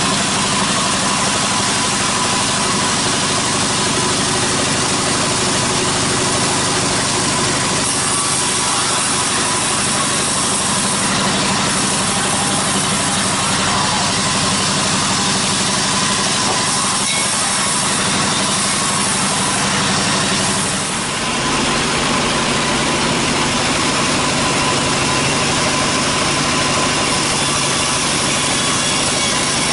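Large band sawmill running steadily, its blade cutting lengthwise through a teak log over the steady hum of the machine's motor. The sound dips briefly about two-thirds of the way through, then goes on.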